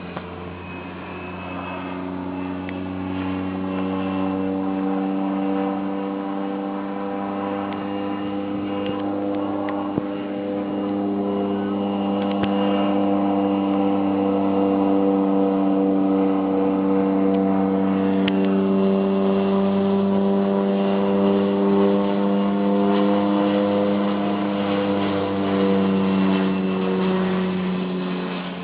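Engine drone of a low-flying agricultural spray aircraft: a steady pitched hum that builds over the first few seconds, shifts slightly in pitch partway through, and fades near the end.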